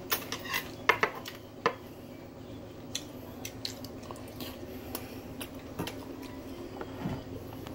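Tableware being handled on a table: scattered light clinks and knocks of dishes and utensils, the sharpest clicks in the first two seconds.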